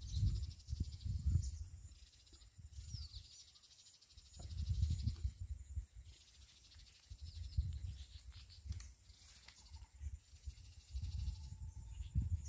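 Open-air ambience: low buffeting noise comes and goes in gusts several times, like wind on the microphone, over a steady high insect drone, with a few short bird chirps near the start.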